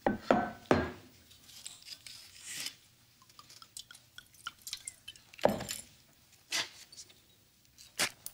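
Kitchen handling sounds: a glass liquor bottle knocks as it is picked up, liquor glugs faintly into a metal saucepan, and the bottle is set back down on a wooden cutting board with a sharp knock about five seconds in; a few small clicks follow.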